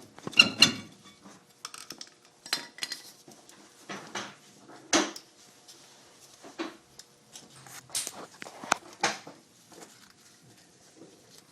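Metal brake pads and caliper hardware clinking and knocking as they are handled and fitted into the caliper bracket: a dozen or so irregular sharp clinks, the loudest about five seconds in and near the eight-second mark.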